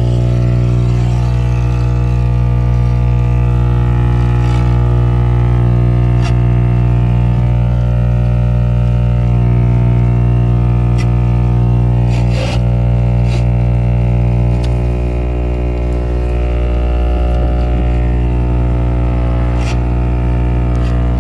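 A loud, steady, low droning tone with many overtones, unchanging in pitch, with a few faint clicks scattered through it.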